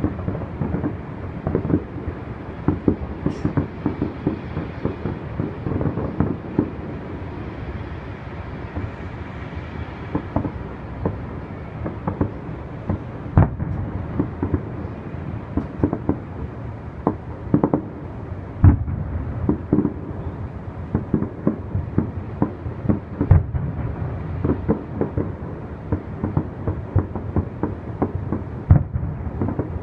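Aerial fireworks going off in a dense, irregular string of dull booms and pops over a steady low rumble, with a few bigger bangs now and then.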